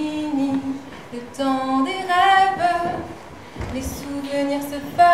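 A woman singing a cappella, unaccompanied: sustained sung notes in short phrases, the voice alone with no instruments.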